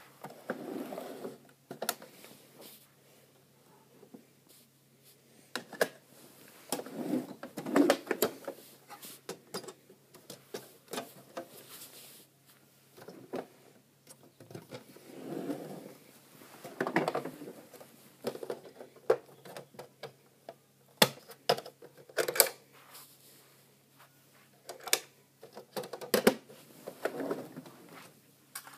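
Hands handling a plastic toy DHL van: scattered sharp clicks and snaps of its plastic doors and hinges opening and closing, with short spells of plastic rubbing and rattling.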